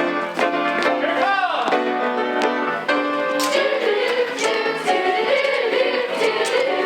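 Musical-theatre singing: several voices over instrumental accompaniment. About a second in comes a rising-and-falling glide in pitch, and in the second half a wavering held line.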